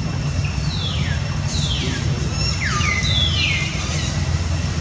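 A steady low rumble with several high, whistled animal calls over it, each sliding down in pitch, bunched in the middle.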